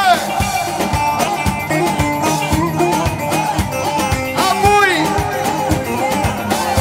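Live band playing upbeat dance music: a steady drum beat under a melody line with sliding, bending notes.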